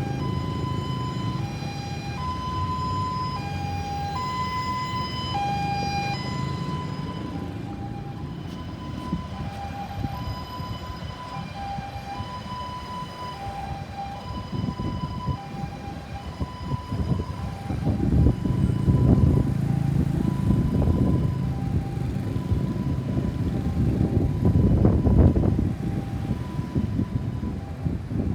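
Ambulance siren sounding a two-tone hi-lo wail, switching steadily back and forth between two pitches. From about halfway through, a low rumbling noise swells up beneath it and becomes the loudest sound.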